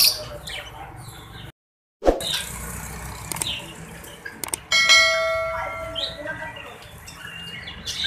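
Caged birds chirping and squawking, broken by a half-second gap of silence. About five seconds in, after a couple of clicks, a bell-like chime rings out and fades over a second or so: the sound effect of an animated subscribe-and-bell overlay.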